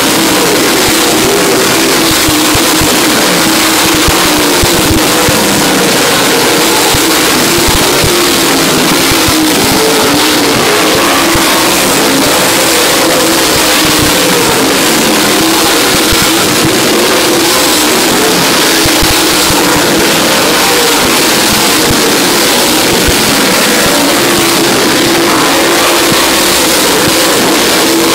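A field of dirt late model race cars with big V8 engines running laps at racing speed. Their engines blend into one loud, steady noise whose pitch wavers up and down as cars go past.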